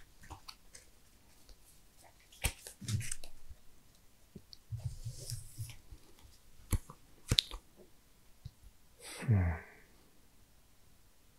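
Sleeved playing cards being handled on a playmat: a few sharp clicks and taps as cards and a deck box are set down, with a brief sliding hiss about five seconds in. Near the end comes a short low vocal sound that falls in pitch.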